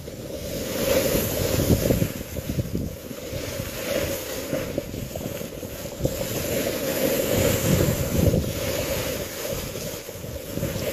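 Wind rushing over a phone's microphone while snowboarding downhill at speed, mixed with the hiss of the snowboard sliding and scraping over groomed snow. It is a constant rumbling noise that swells and eases.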